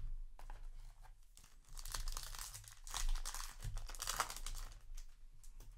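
A foil Yu-Gi-Oh! booster pack crinkling and tearing as it is ripped open by hand, loudest around the middle.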